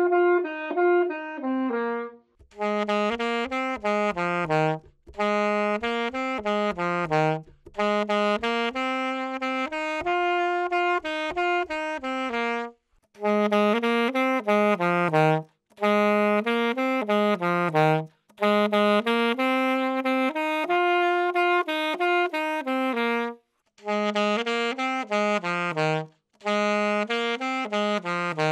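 Alto saxophone playing the same short mid-range phrase again and again, each phrase falling away at its end, with short breaths between. It is heard through one microphone after another in turn, and the sound turns brighter about two seconds in.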